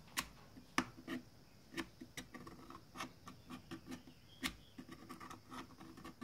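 Scratch awl tracing and tapping around the openings of a plastic outlet-plate template: a string of irregular light clicks with faint scraping.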